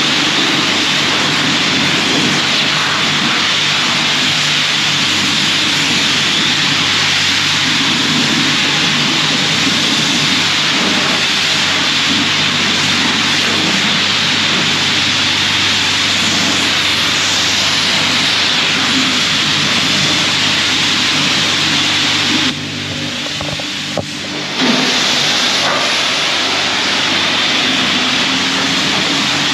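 Coin-operated car wash's high-pressure rinse wand spraying water onto a pickup truck's body panels: a loud, steady hiss over a steady low hum. The spray cuts out for about two seconds near the end, then starts again.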